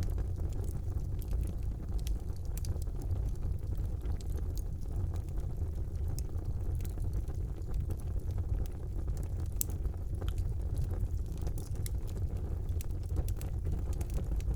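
Wood fire burning in a fireplace: a steady low rumble of the flames with scattered small crackles and pops throughout.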